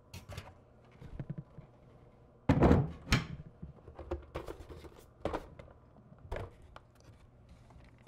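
Plastic thunks and knocks as the top cover of an IQAir air purifier is lifted off and a plastic airflow hood is set down on it. The loudest knock comes about two and a half seconds in, followed by a few lighter knocks.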